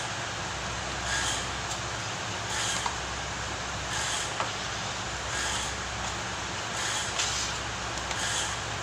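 A hand spreader scraping body filler across a car door panel: a soft scrape about every second and a half, over the steady hum of a body shop.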